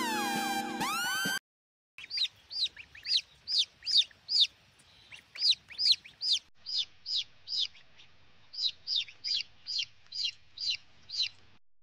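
A chicken chick peeping: a long run of short, high, falling peeps, about two to three a second, with a brief pause partway through.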